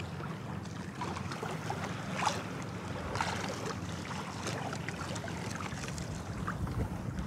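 Water slapping and splashing against the hull of a small boat at sea, with a steady low rumble of wind on the microphone.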